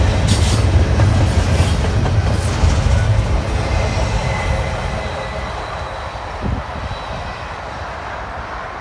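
A double-stack intermodal container train's last cars rolling past on jointed track with a heavy rumble and rail clicks. The sound fades from about halfway through as the end of the train draws away.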